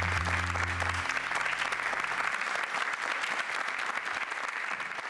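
Audience applauding, a dense even clapping that slowly thins out. The last held notes of the music die away about a second in.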